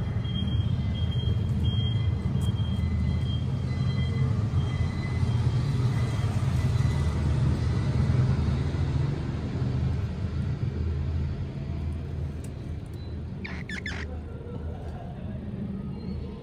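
Steady low rumble of outdoor background noise, with a short high chirp or squeak near the end.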